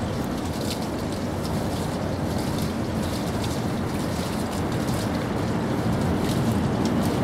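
Steady outdoor background noise: a low rumble with hiss, and faint brief ticks high up; the level rises a little near the end.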